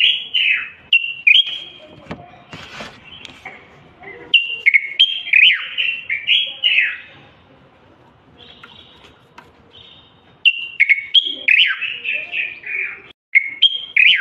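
Common bulbul (Moroccan bulbul) singing: quick runs of short whistled phrases with gliding notes. The song drops away for a few seconds in the middle, then resumes.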